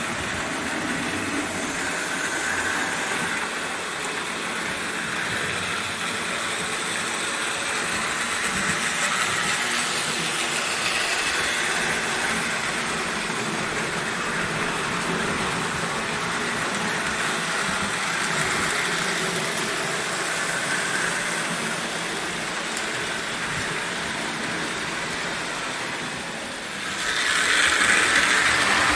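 O gauge toy train running on the layout track: a steady whir of the electric motor and wheels on rail, growing louder near the end.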